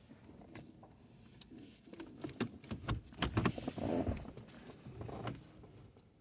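Irregular plastic clicks, knocks and rattling from hands working a control cable and its clip onto a climate control unit, busiest and loudest from about two to four seconds in.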